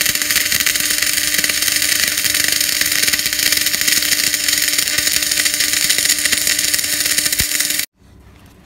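MIG welding arc on a steel T-joint, run at about 250–270 amps and 21–24 volts with 1.2 mm wire, giving a loud, steady crackling hiss. It cuts off suddenly about eight seconds in.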